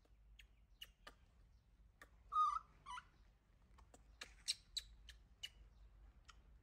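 A baby macaque gives a short squeaky call about two seconds in, then a second, shorter squeak. Scattered sharp clicks run around the calls, several close together near the middle.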